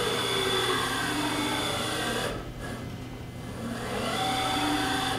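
Fadal VMC-15XT vertical machining center's X-axis servo drive moving the table, a whine whose pitch slides up and down over a steady low hum. It breaks off briefly about halfway through, then runs again.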